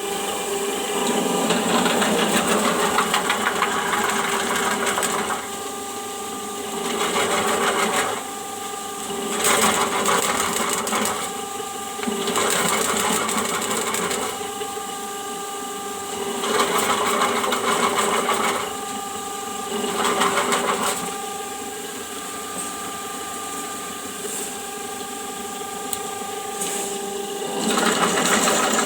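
Small electric drain-cleaning machine motor running steadily, with a steady whine, growing louder for a second or few at a time and easing back, again and again.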